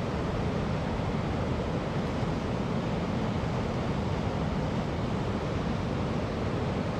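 Steady rushing of fast-flowing river current over rocks, an even unbroken wash of noise.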